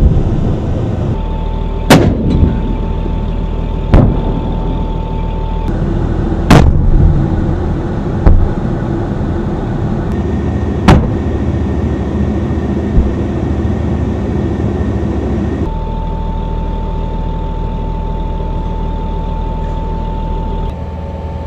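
Shots from an M1128 Stryker's guns ring out sharply about every two seconds at first, then more sparsely, with two fainter shots among them, over the vehicle's diesel engine running with a steady low rumble and a steady high whine; the last several seconds hold only the running vehicle.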